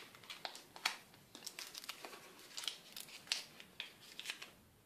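Paper wrapping crinkling and tearing as a gift package is opened by hand, in irregular short crackles and rustles.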